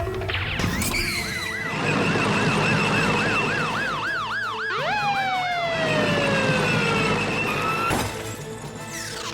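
Fast warbling siren, about four rises and falls a second, then a quick upward whoop and a long falling whistle, ending with a sharp click.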